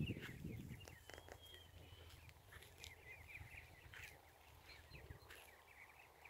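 Indian Runner ducklings peeping faintly in quick little clusters as the flock walks over the grass. A low rumble fades out in the first second.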